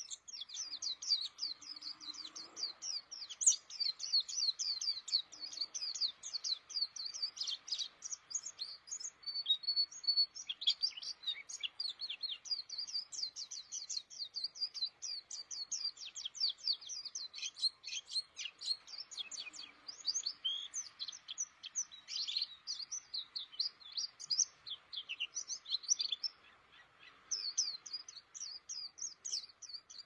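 A white-eye (pleci) singing a long, rapid twittering song of high chirps, with a short break near the end before it picks up again.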